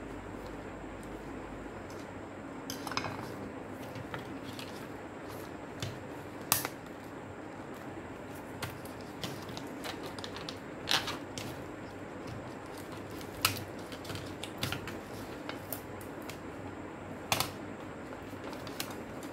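Sharp plastic and metal clicks and taps from a portable CD player being taken apart by hand, its casing pieces and a small screwdriver knocking together, scattered a few seconds apart over a steady background hum.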